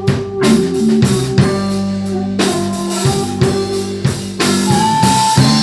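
Live blues band playing an instrumental passage between sung lines: electric guitar and bass over a drum kit, with a held lead note sliding up near the end.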